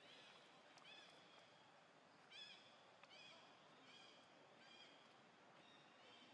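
Faint series of about seven short, high-pitched arching animal calls, roughly one a second, over quiet outdoor background hiss.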